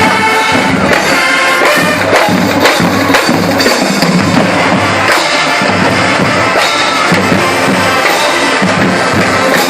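Drum and bugle corps playing live. The brass holds chords for about the first two seconds, then the marching drums take over with repeated low strikes under the horns.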